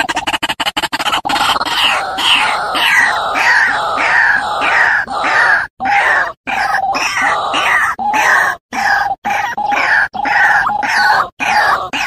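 White-breasted waterhens calling: a loud run of harsh, repeated 'ruak-ruak' croaks, about three a second, falling in pitch on each note, with a few brief cut-offs. It is a lure recording of adult and young birds, used to call in waterhens.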